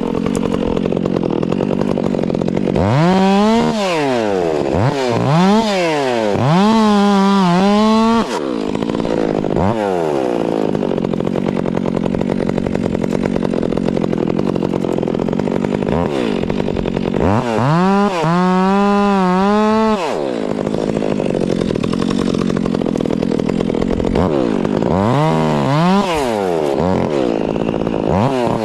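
Two-stroke chainsaw running hard, its engine pitch repeatedly climbing to full revs and dropping back, with steadier lower-pitched stretches in between as it works through wood.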